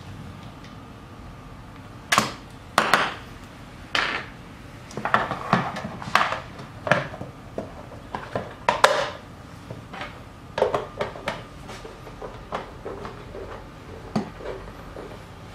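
A plastic vegetable slicer being handled on a wooden board: irregular clacks and short scrapes, starting about two seconds in and stopping shortly before the end, the loudest about halfway through.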